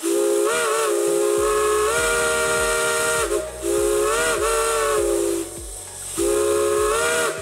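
Several steam whistles on a pipe manifold sounding together in a chord, in three long blasts whose pitch wavers as each one opens, with steam hissing under and between them.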